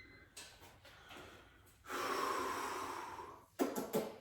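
A man breathing hard from weight-training exertion: a breath early on, then a long forceful exhale lasting about a second and a half, then a quick sharp breath near the end.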